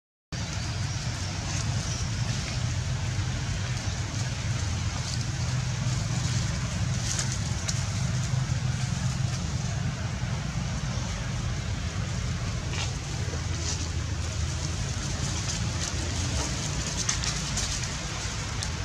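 Steady low rumble and even hiss of outdoor background noise, with scattered faint crackles.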